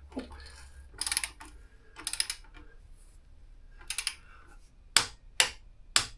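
Click-type torque wrench ratcheting in short runs on the front axle pinch bolts, then a few sharp single clicks near the end as it reaches its 19 Nm setting.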